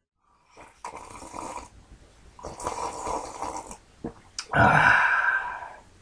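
A person making three rough, breathy vocal noises, each about a second long; the last is the loudest.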